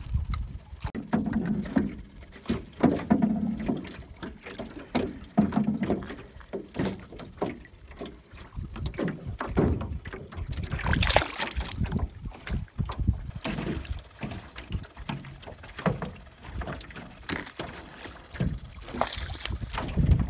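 Wind buffeting the microphone and water lapping against a small boat on choppy water, with the splashing of a hooked fish thrashing at the surface. The noise comes in uneven gusts, with louder surges about halfway through and near the end.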